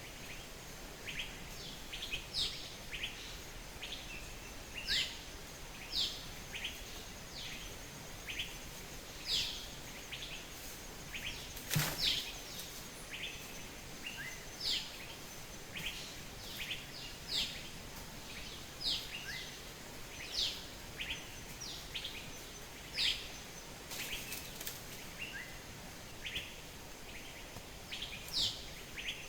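Birds calling repeatedly with short, quick chirps that drop in pitch, one or two a second, over a steady background hiss. A single sharp click sounds about midway.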